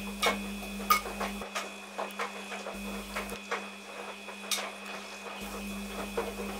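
A steady mechanical hum with irregular small clicks and ticks over it.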